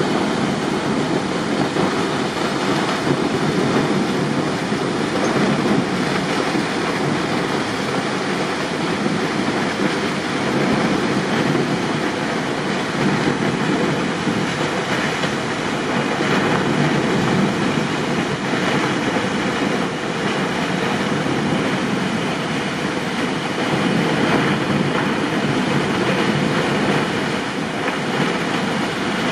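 A tall waterfall falling onto rocks and into a plunge pool: a steady, loud rush of water with a deep rumble, unbroken throughout.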